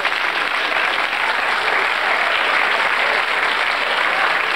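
Studio audience applauding, a steady dense patter of many hands clapping at once.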